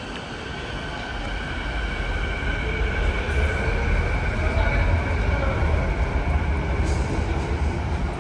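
Canada Line metro train running past the station: a low rumble with a steady high whine that builds to a peak midway and eases off near the end.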